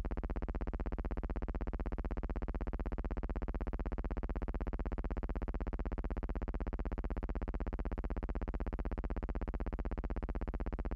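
Steady low electrical buzz with many overtones, never changing in pitch or level.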